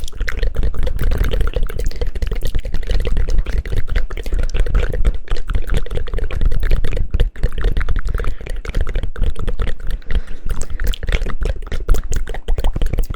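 Close-miked ASMR trigger sound: a dense, fast, continuous patter of soft taps and crackles over a heavy low rumble.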